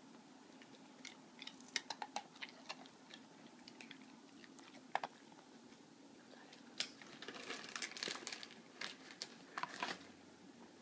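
An Old English Sheepdog crunching and chewing a cookie: a scatter of short, crisp crunches that come thicker toward the end.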